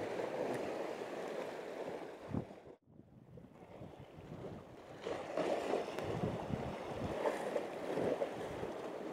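Sea waves washing against shore rocks, with wind on the microphone. The sound cuts out briefly about three seconds in, then returns with surges of surf.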